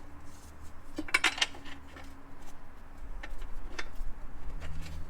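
Metal bolts and tools clinking and tapping, a quick cluster of clinks about a second in and a few single ticks after, as the transmission crossmember is being reinstalled.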